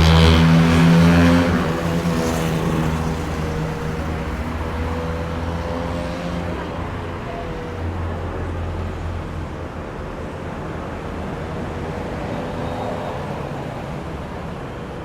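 A road vehicle passing close by, its engine loudest in the first second or so and then fading away over the following seconds into steady traffic noise.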